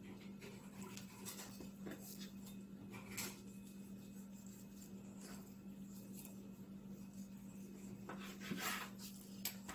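Faint scraping and cutting of a sharp knife trimming raw chicken meat off the bone against a plastic cutting board, in scattered short strokes, over a steady low hum.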